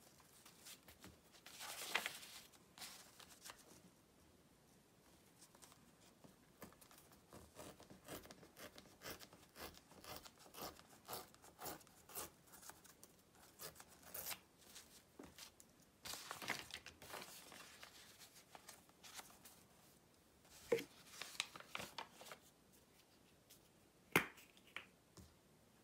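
Sheet of paper torn slowly along the edge of a clear ruler in short stretches, with the paper rustling as it is handled. A sharp click near the end.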